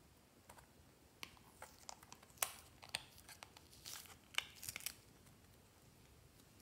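Soft modelling clay being peeled out of a plastic case: a run of faint sticky crackles, tearing sounds and clicks, stopping about five seconds in.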